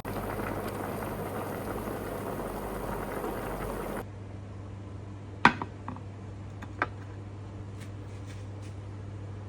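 A pot of jungle curry bubbling at the boil. About four seconds in, the bubbling cuts off abruptly. A few sharp clinks follow, like a utensil against a pot or dish, over a low steady hum.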